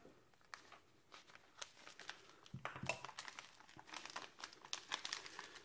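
Crinkling of a combat ration's small tea-and-coffee pack and its foil sachets as they are handled and opened by hand. Sparse crackles at first, growing dense from about two and a half seconds in.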